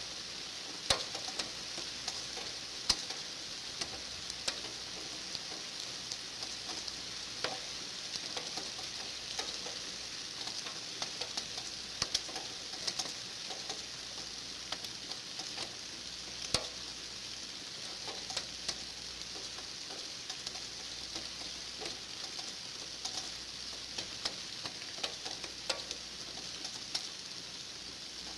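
Steady rain falling: an even hiss with irregular sharper drops tapping now and then.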